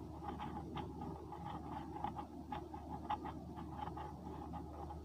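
A cloth wiping a whiteboard clean: an irregular run of faint rubbing and scraping strokes, several a second.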